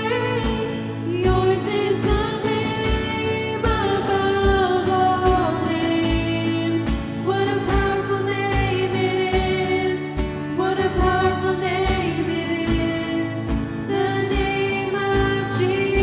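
Contemporary worship song: sung vocals over a band with a steady kick-drum beat.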